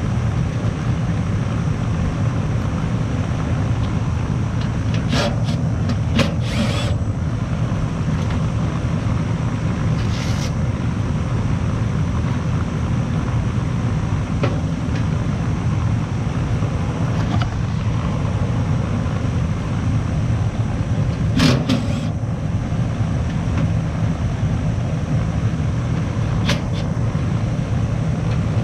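Goodman R-410A condensing unit's outdoor fan running steadily with the compressor not running, a fault put down to a bad capacitor. A few short clicks and knocks come over it as the unit is opened.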